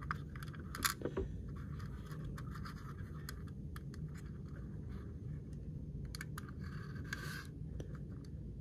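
Faint scratching and scattered small clicks from small model parts being handled on a work surface.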